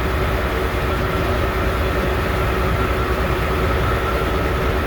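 Heavy diesel farm machinery running steadily: a low, fast-pulsing engine drone with a steady whine held over it.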